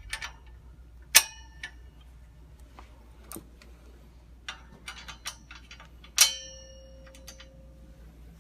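Metal clinks and taps of lock pins being fitted into a metal display-rack frame, with two sharp clangs, about a second in and about six seconds in, the second ringing on for over a second.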